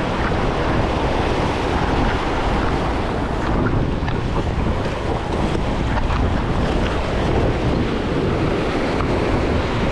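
Wind blowing across the microphone over waves washing against jetty rocks: a steady, fairly loud rushing with no pauses.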